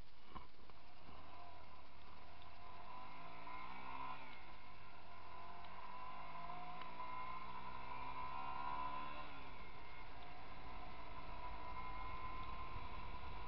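Motorcycle engine running on the move, its pitch rising and falling a couple of times as the rider works the throttle, with low wind rumble on the microphone growing near the end.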